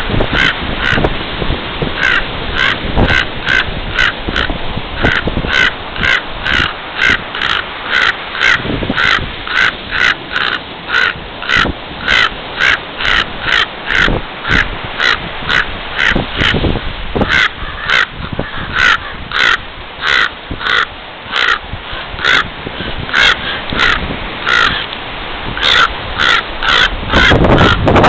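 Agitated raven giving short caws over and over, about two a second. The uploader takes the calling for an alarm in defence of a nearby nest.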